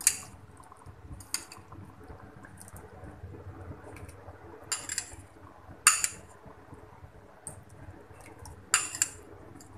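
A steel fork clinking and scraping against a small ceramic bowl as tamarind pulp is pushed out of it into the pot. There are sharp single clinks at the start and about a second and a half in, two more around five to six seconds, and a quick pair near the end.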